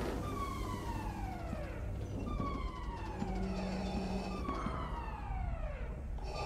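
Starship alarm in a film soundtrack: a tone that sweeps downward in pitch, repeating about every two seconds, over a low steady hum.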